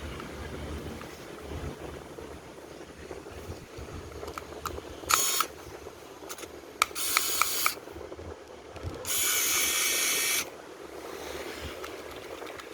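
Three bursts of hissing, the last and longest lasting about a second and a half, with a few faint clicks between them.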